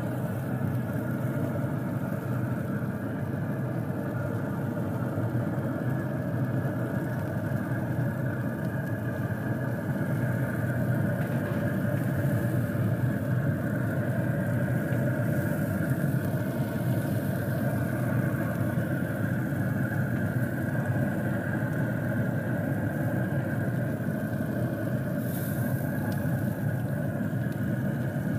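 Steady mechanical hum with several constant tones, like a fan or motor running without change. A brief high scrape is heard near the end.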